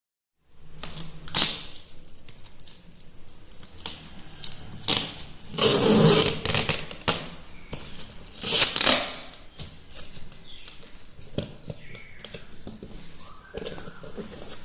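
Cardboard and plastic packaging being handled and unpacked, rustling and scraping in irregular bursts. The loudest swishes come about a second in, around six seconds in, and near nine seconds.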